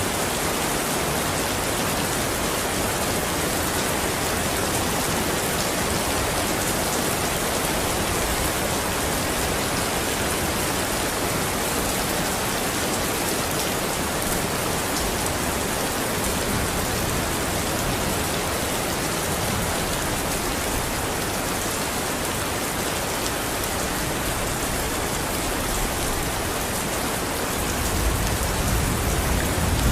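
Steady rainfall pattering on surfaces. Near the end a low rumble of thunder begins to build.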